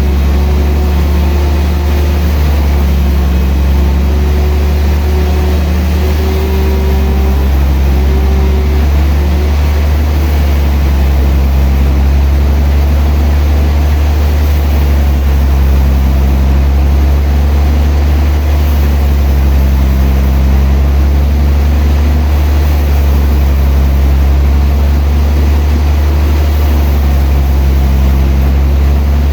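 Sawmill machinery running: a steady, loud, low engine drone with a deep hum that holds throughout, its pitch shifting slightly now and then.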